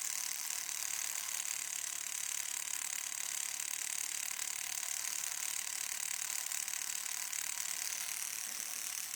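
Battery-powered homemade tattoo machine, built from a mechanical pencil and a guitar string, running with a steady high buzz while tattooing.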